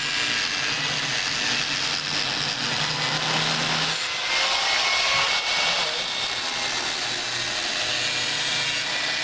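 Angle grinder running steadily against the steel of a rusted gate, grinding or cutting the metal.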